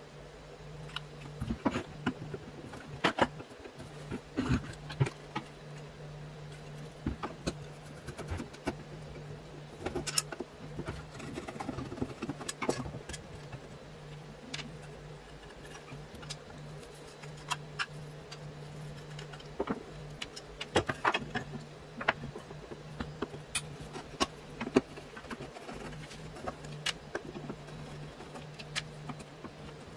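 Irregular clicks and clacks of a telephone bell set being taken apart by hand: its base plate, small screws and washers knocking on a wooden table, and a screwdriver working a screw near the end, over a steady low hum.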